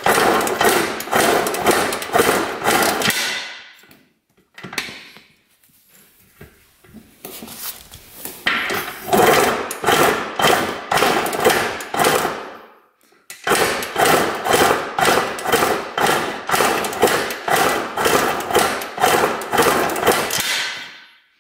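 A 1980 Suzuki RM125's single-cylinder two-stroke engine is kicked over again and again with the throttle open, making a fast run of knocking strokes. It comes in three bouts, with a pause of a few seconds after the first and a short one before the last. This is a compression test, and the gauge climbs to about 140 psi.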